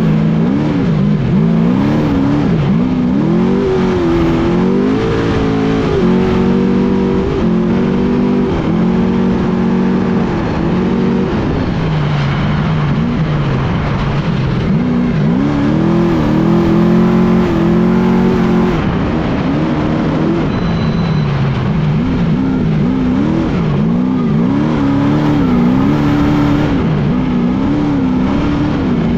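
Trophy truck engine at racing speed, its pitch rising and falling over and over as the revs climb and drop, with a steady rush of wind and dirt noise.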